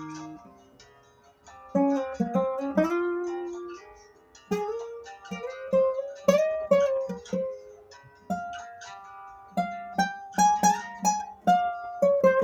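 Acoustic guitar playing a melody in single plucked notes (picado), over a low bass note plucked again and again, with short pauses between phrases.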